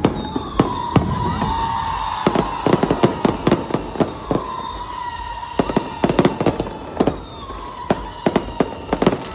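Fireworks display: rapid bangs and crackling pops coming in dense clusters, with a steady high whistle sounding over them for most of the time.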